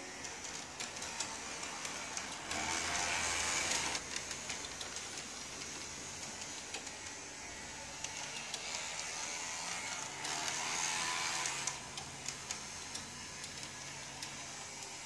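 Scale-model ATAC MRS tram running along its track: the small electric motor and wheels run steadily with frequent light clicks. It grows louder twice for about a second and a half, with a low hum.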